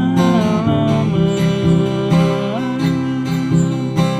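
Slow ballad: a voice sings long, held notes in Indonesian over a strummed acoustic guitar.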